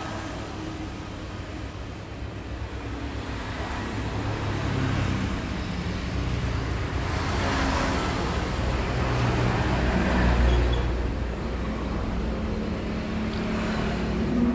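Road traffic: a steady low rumble of passing vehicles, swelling loudest about ten seconds in.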